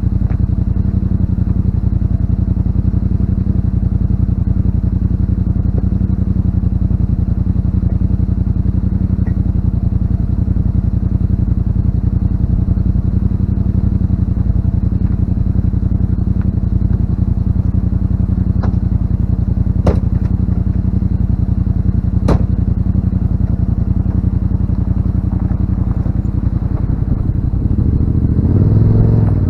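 Yamaha RMAX 1000 side-by-side engine idling steadily, with a few sharp clicks about two-thirds of the way through and the engine note briefly rising near the end.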